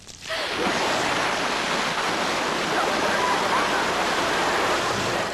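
Water dumped from overhead onto a person, a loud steady rush of pouring and splashing water that starts sharply just after the beginning and keeps on.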